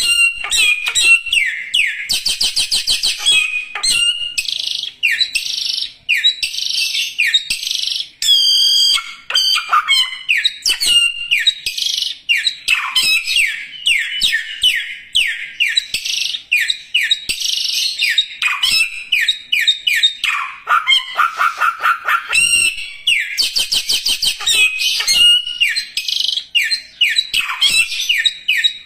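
Samyong songbird singing vigorously and almost without pause: rapid runs of falling chirps and fast trills, broken by a few short gaps.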